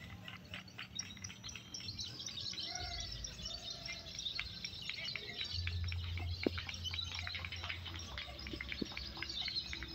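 Many caged songbirds singing at once in a bird-singing contest: a dense, continuous chorus of rapid chirps, trills and short whistles. A low hum runs underneath for a few seconds in the middle.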